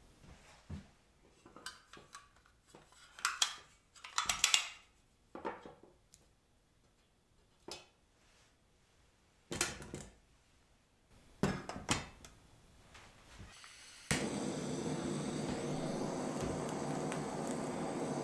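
Metal cookware clinking and clattering as an aluminium camping pot and stove are handled. About 14 seconds in, a butane torch lighter clicks on and hisses steadily as it lights the solid-fuel tablet in a folding pocket stove.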